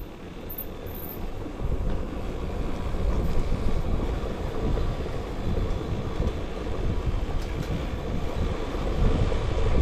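Motorcycle engine running under way, with wind rushing over the microphone; it gets louder about a second and a half in.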